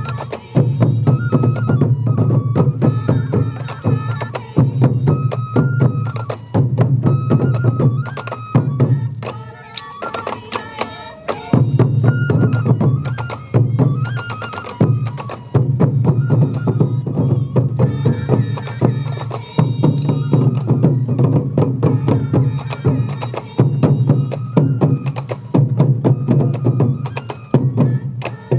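Sansa odori festival music with taiko drums beating densely and a flute melody stepping over them in short phrases.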